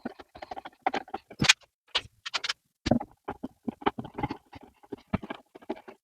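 Irregular clicks, taps and knocks of a small wooden furniture piece being turned over and handled, with light metallic clinks of screws and a screwdriver being set in place.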